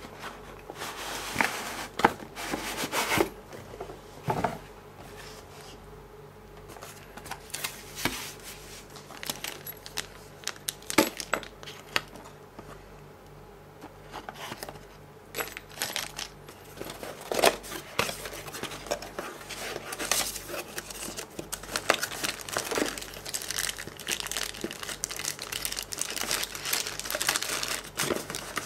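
Cardboard box and plastic-bagged parts being handled and rummaged through, giving irregular crinkling and rustling with small clicks, sparse in the middle and busier in the second half. A faint steady low hum sits underneath.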